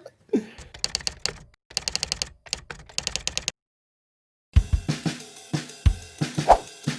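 Rapid clicking like typing on a keyboard for about three seconds, then a second of silence, then music with a drum kit starts, its kick drum thumping.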